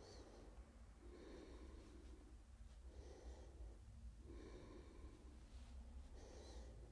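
Faint breathing through the nose, a soft breath every second or two, over a low steady hum.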